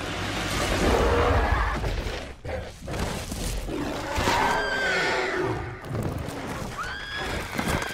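Movie monster-fight sound effects: heavy low rumbling and crashing, then two high cries that rise and fall, one about four seconds in and one near the end.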